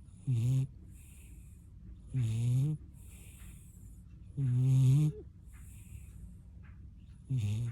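Sleeping dog snoring: four pitched snores about two and a half seconds apart, with softer airy breaths between them.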